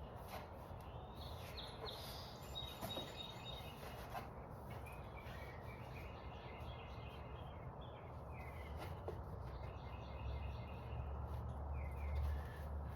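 Birds chirping in the background in short, high calls that come in two spells, with a few faint clicks and a low hum that grows louder near the end.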